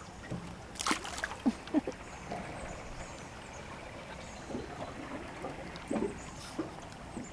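A small channel catfish released back into the river, with a brief splash about a second in. Faint bird chirps and a few light knocks follow.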